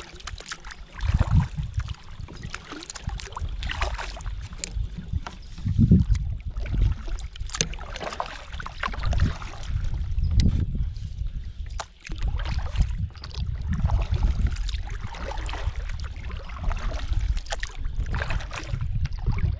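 Kayak paddling: a double-bladed paddle dipping and pulling through the water in repeated strokes, with splashes and drips running off the blades. Irregular low rumbles sound throughout.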